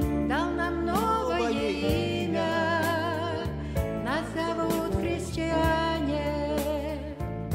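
A woman's voice singing a Christian song with vibrato, over sustained electronic keyboard chords and strummed acoustic guitar.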